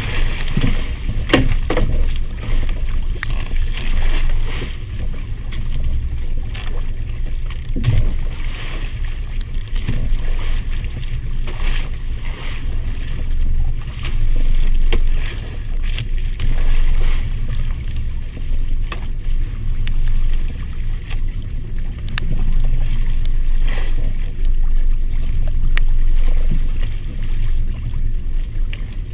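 Steady low rumble of wind and water around a small fishing boat, with scattered short knocks and taps.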